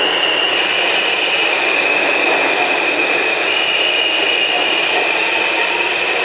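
R160 subway train running along an underground station platform: a steady rumble of wheels on rail with a high squeal held over it that shifts in pitch a few times.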